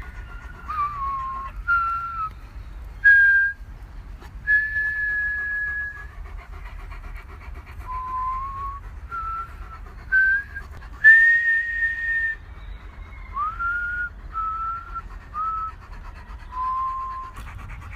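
A person whistling a string of separate notes to call a dog back, some held for a second or more and some sliding up or down in pitch.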